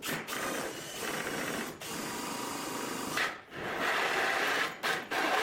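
Electric power tool cutting into wood, running steadily with a couple of short pauses.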